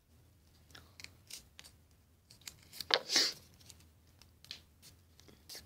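Small strip of paper being folded and creased by hand: scattered soft rustles and crackles, the loudest about three seconds in.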